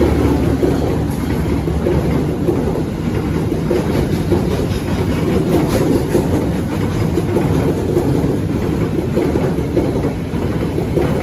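A train passing close by, its wheels rumbling steadily on the rails.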